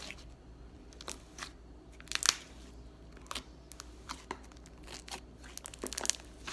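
Clear glue slime being stretched and squished by hand, giving scattered sticky clicks and crackles, the loudest about two seconds in.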